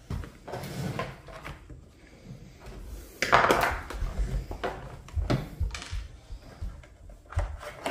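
Hollow plastic knocks and clicks from handling a kids' battery-powered ride-on ATV's hinged seat and battery compartment, with a brief scraping rustle about three seconds in.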